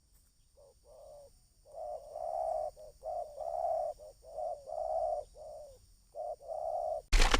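Spotted dove cooing: a series of soft, rounded coo notes in repeated phrases. In the last moment a sudden loud noise cuts in.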